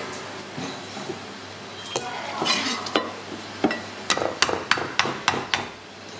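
Meat cleaver chopping on a thick round wooden chopping block, cutting up a skinned snake: a couple of single knocks, then a quick run of about eight sharp chops at roughly four a second.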